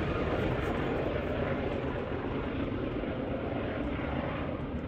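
Diesel-electric freight locomotives working hard under load, climbing a 1% grade: a steady low engine rumble that eases slightly toward the end.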